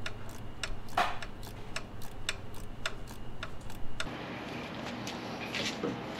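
Hand ratchet wrench clicking as it is worked back and forth on a fitting of a Detroit Diesel engine, a few sharp clicks a second. The clicks thin out after about four seconds.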